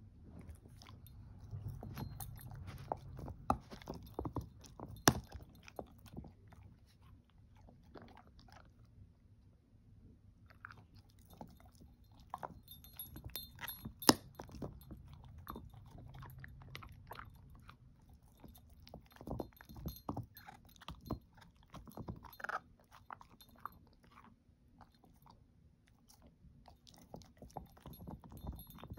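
Dog gnawing a hard "everlasting" chew treat, with irregular crunches and clicks of teeth on the treat. One sharp crack about halfway through is the loudest.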